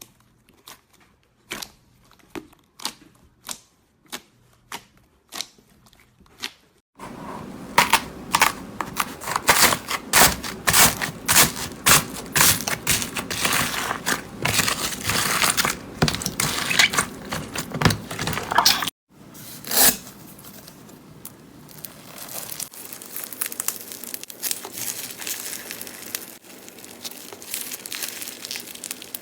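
Slime being squeezed and poked by hand, making sticky pops and clicks. About seven seconds in it turns into a loud, dense crackling with many sharp snaps. After a break a little past the middle it goes on as a quieter, steady crackle.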